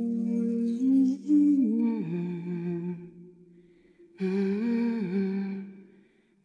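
Background music: a voice humming a slow melody in long held notes, in two phrases with a short pause between them.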